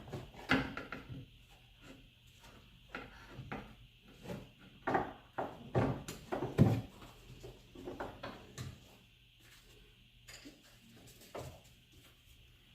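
Irregular metallic clunks and knocks from a car's front suspension parts and tools being handled while a new strut assembly is worked into place, the loudest about half a second, five and six and a half seconds in, thinning out near the end.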